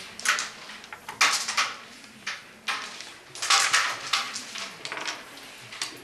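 Carrom striker and carrom men clacking against each other and on the board surface: several separate sharp clacks, with a quick cluster about three and a half seconds in.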